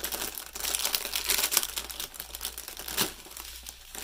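Crinkly plastic packaging of a diamond painting kit being handled, crackling in a quick run of small clicks that thins out after about three seconds.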